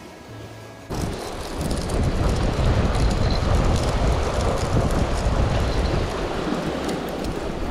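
Heavy wind rumble on the microphone over waves washing against shoreline rocks. It cuts in suddenly about a second in, replacing faint background music.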